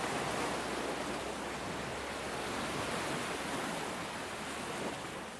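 Steady hiss of rain falling, fading down near the end.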